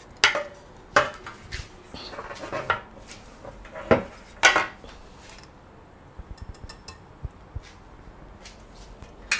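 A spoon scraping and knocking against a wire-mesh sieve and the rim of the bowl beneath it as pan juices are pressed through. There are several sharp clinks, the loudest about four and a half seconds in, then only light ticks.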